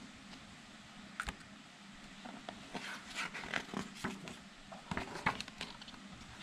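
A page of a hardcover picture book being handled and turned: a single click about a second in, then soft paper rustling and scraping.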